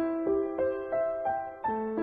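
Background music: a gentle piano melody, single notes struck at an even pace of about three a second.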